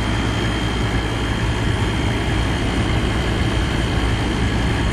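1988 Emerson Quiet Kool 7600 BTU window air conditioner running and cooling: a steady rush of air from its fan over a steady low hum, with a faint thin high whine. It is blowing strong airflow with its condenser fins straightened.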